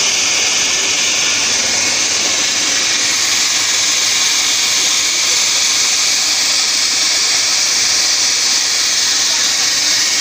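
Steady, loud hissing din of a crowded market, with voices blurred together and no clear words.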